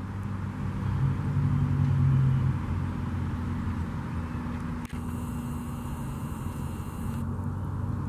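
Steady low mechanical hum, like an engine running, with one faint click about five seconds in.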